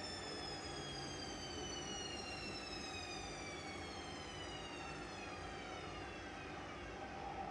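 Washing machine spinning down at the end of its spin cycle: the drum motor's high whine falls slowly and steadily in pitch as the drum slows, over a low rumble.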